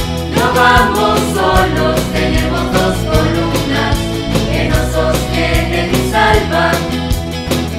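Mixed choir of young voices singing an upbeat song over instrumental accompaniment with a steady drum beat and bass.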